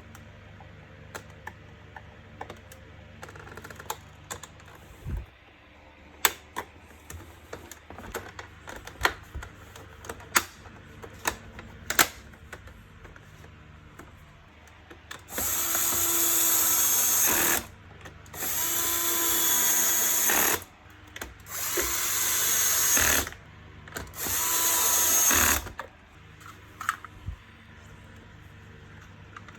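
Electric screwdriver driving screws in four bursts of about two seconds each, starting and stopping abruptly, after scattered clicks and knocks of plastic parts being handled.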